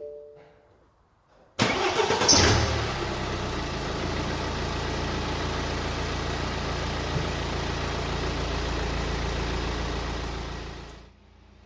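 BMW 120d's N47 four-cylinder diesel, fitted with a new lower timing chain, starting with a brief burst and then idling steadily for about nine seconds before it is switched off. A short beep comes just before the start.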